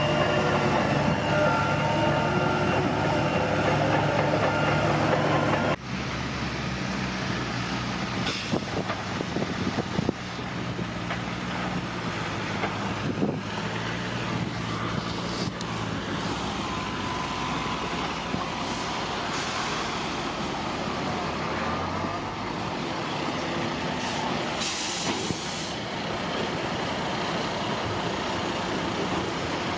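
Bulldozer's diesel engine running steadily. About six seconds in the sound drops suddenly to a lower level, and after that a few short hisses and knocks come and go over the engine.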